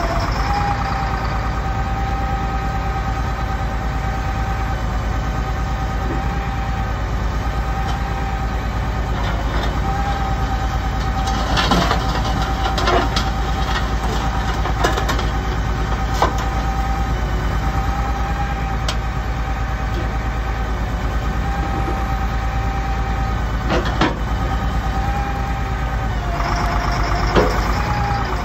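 Sterling L7500 grapple truck running steadily while its hydraulic knuckle-boom grapple is worked, with a steady whine that dips in pitch briefly near the end. Sharp metal clanks and knocks from the boom and grapple come mostly midway through and twice near the end.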